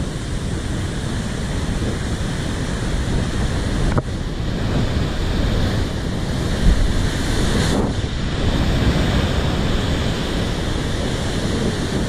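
Heavy ocean surf breaking against rocks, a continuous churning rush with wind buffeting the microphone. About two-thirds of the way through, one big wave slams into the rocks with a low thud and a rising hiss of spray.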